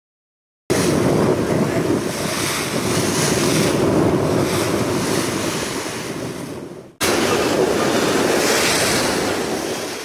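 Sea and wind noise from a moving boat: a steady rush of waves with wind buffeting the microphone. It starts about a second in, fades and cuts off abruptly about two-thirds through, then starts again and fades near the end.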